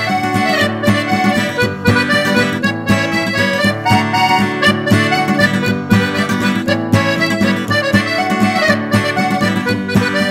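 Instrumental break on accordion and acoustic guitar, the accordion carrying the tune over the guitar's steady beat; no singing.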